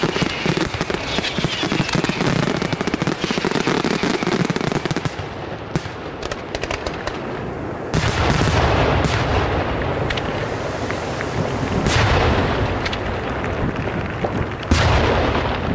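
Aerial fireworks: a dense run of rapid crackling reports for the first few seconds, thinning to scattered pops. Then come heavy booms with long rumbling echoes about eight seconds in, about twelve seconds in, and a sharper one near the end.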